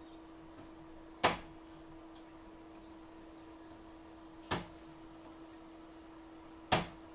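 Steady electrical hum with a faint high whine from the repair bench, broken by three sharp clicks: about a second in, midway, and near the end.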